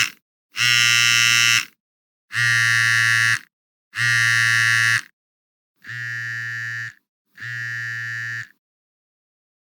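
A telephone ringing: five buzzing rings about a second long, with short gaps between them, the last two quieter.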